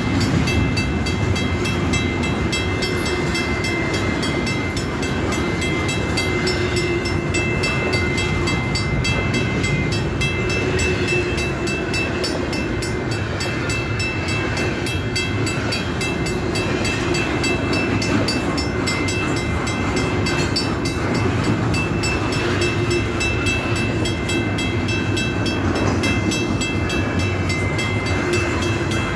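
Long double-stack intermodal freight train rolling past, a steady rumble of wheels on rail. A thin steady high-pitched tone comes and goes over it.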